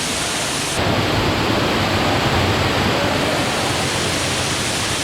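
Waterfall pouring steadily, a dense, even rush of falling water. Its tone changes abruptly just under a second in.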